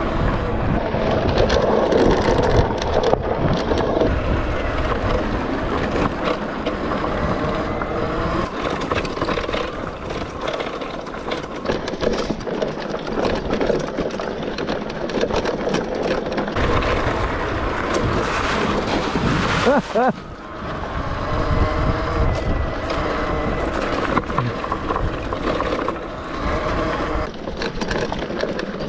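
Riding noise from a Fatboy Scrambler electric motorbike on a trail: wind buffeting the microphone and tyre rumble, with a faint steady whine and occasional bumps.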